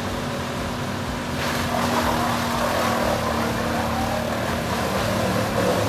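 Large drum wood chipper running: a steady engine hum, joined about a second and a half in by a louder, rougher rush of noise that lasts to the end.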